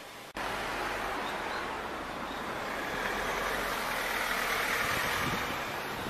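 Vehicle engine and road noise running steadily with some wind on the microphone. The sound cuts in abruptly just after the start.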